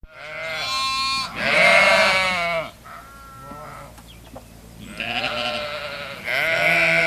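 Bleating goats or sheep, several long quavering bleats: two loud ones at the start, a fainter one about three seconds in, then two more from about five seconds on.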